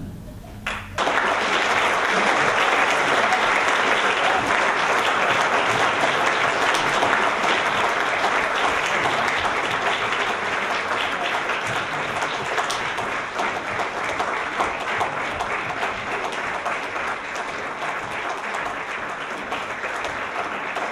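Concert audience applauding. The clapping breaks out about a second in, after a brief hush, then keeps up as dense, steady applause that eases slightly toward the end.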